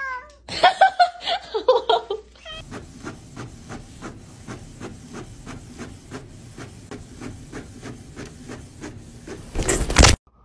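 A couple of loud cat meows, then an inkjet printer printing: its print head clicks steadily about three times a second over a low hum. Near the end comes a loud rushing noise.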